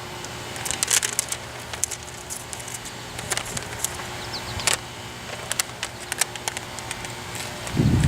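Plastic crinkling and crackling in a run of scattered sharp clicks as a disposable face mask is handled and pressed into place, with a few short squeaks about halfway through. Near the end a low rumble of wind on the microphone sets in.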